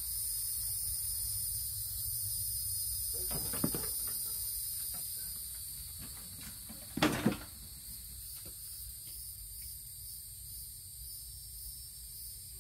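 Clunks and knocks as a Craftsman riding lawnmower is tipped over onto its side. The loudest is a double thump about seven seconds in. A steady high insect trill runs underneath.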